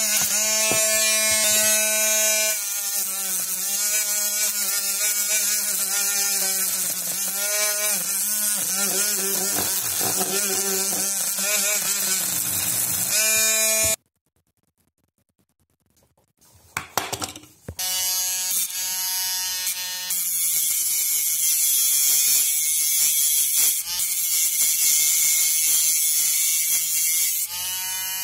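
Small handheld rotary grinder motor whining at high speed, its pitch wavering and dipping as a sanding drum is pressed against rusty steel pliers to strip the rust. About halfway through the sound stops for a couple of seconds, a few clicks follow, then the motor runs steadily again.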